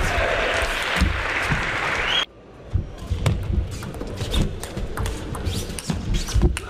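About two seconds of crowd noise and applause that cuts off suddenly. Then a table tennis rally follows: sharp clicks of the ball off the bats and table, mixed with low thuds.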